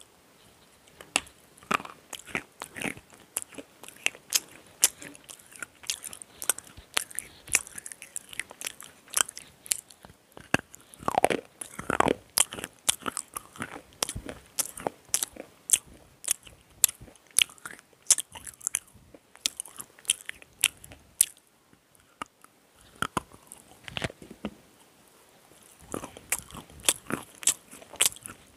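Slate pencils bitten and chewed right at a small clip-on microphone: dense, sharp crunching and cracking of the brittle stone, with a brief lull a little past two-thirds of the way through.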